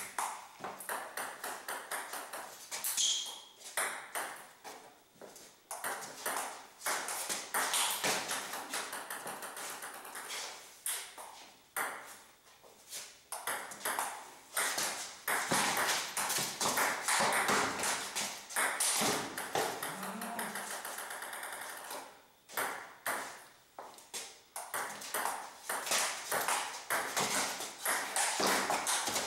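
Table tennis rallies: a ping-pong ball clicking off rubber paddles and the tabletop in quick, irregular runs, with short breaks between points.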